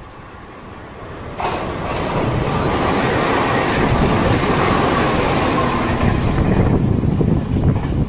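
Electric commuter train approaching and then passing close by. A rising rumble jumps sharply louder about a second and a half in as the cars run past, then holds steady and loud.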